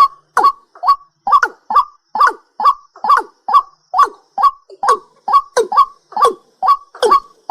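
A night bird calling over and over in a steady rhythm, about two or three short calls a second, each dropping in pitch.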